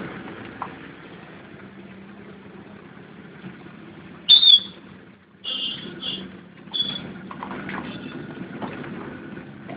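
Steady street noise on a rain-soaked, flooded road, broken by a few short, high-pitched chirps in the middle, the loudest about four seconds in. The sound cuts out for a moment just after it.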